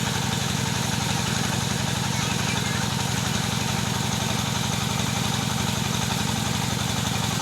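Engine of a wood saw running steadily, its speed and loudness unchanging.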